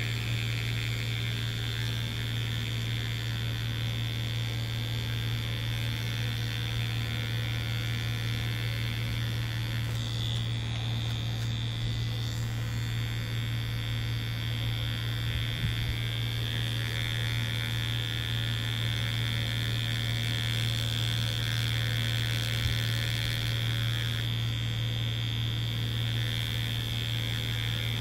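Mummy Anubis tattoo machine buzzing steadily with a low motor hum as its needle works into Reelskin fake skin; the sound shifts briefly about ten seconds in and again a few seconds before the end.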